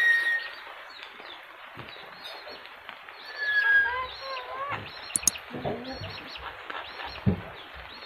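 A yellow-crested cockatoo whistling and making speech-like talking sounds. A short whistle comes right at the start and another about three and a half seconds in, followed by wavering, voice-like calls, with small birds chirping faintly throughout.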